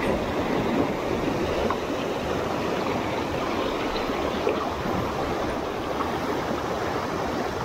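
Water rushing over a shallow, rocky riffle in a creek: a steady, even rush of broken whitewater over cobbles.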